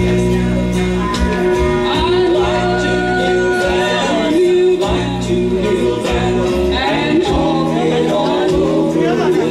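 Music: a sung song over instrumental backing with steady held bass notes.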